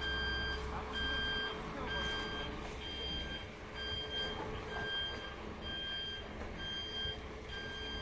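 Vehicle reversing alarm, likely on a truck, beeping in an even rhythm of short beeps about once a second, over a low engine rumble.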